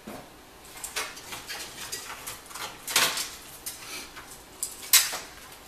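Clicks and light metallic clatter of a computer case and its bundled cables being handled as the wires are pulled free, with a sharper knock about three seconds in and the loudest one near the end.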